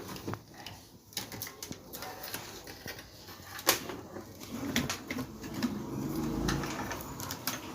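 Scattered light clicks and taps of handling work on an opened CRT television, the loudest a little after halfway.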